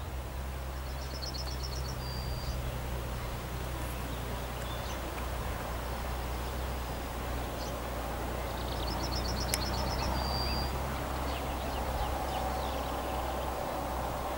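A small bird sings twice, each time a rapid trill ending in one held high note, over a steady low rumble. From about halfway in, the noise of an approaching electric freight train grows louder.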